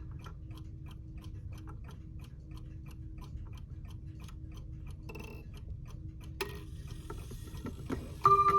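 Seth Thomas Exeter bracket mantel clock, with a rebadged Hermle movement, ticking evenly. Near the end a chime rod is struck and rings on with a clear, steady tone.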